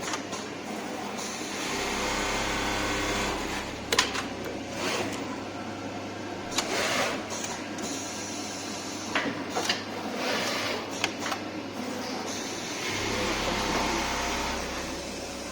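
Automatic pocket welting sewing machine running with a steady motor hum and stitching, broken by sharp clicks and knocks from its mechanism every second or two. Its low drone drops out briefly near the end, then starts again.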